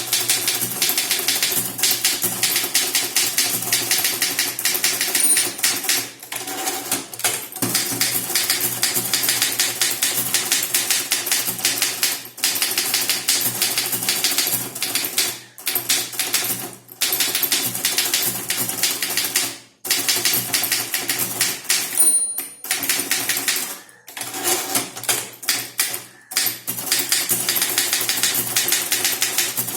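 Typewriter being typed on fast and continuously, a dense rapid run of key strikes broken by a few short pauses. Two brief high rings sound, one about five seconds in and another about 22 seconds in.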